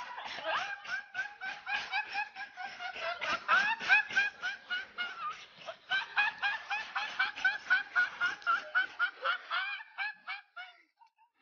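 A young man laughing uncontrollably in a fast run of short, high-pitched bursts that dies away about ten seconds in.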